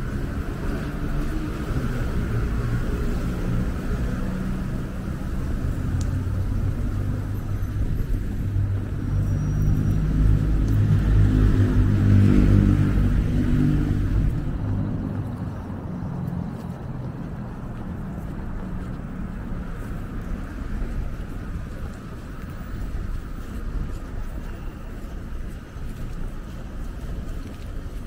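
Street traffic: a steady low vehicle rumble that swells to its loudest about twelve seconds in and then fades back.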